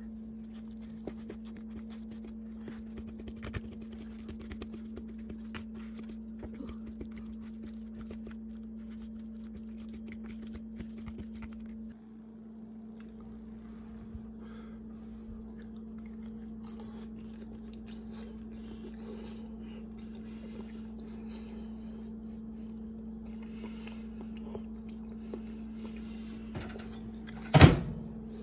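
Steady low electrical hum with faint, scattered small clicks and scrapes over it. One loud, sharp thump comes near the end.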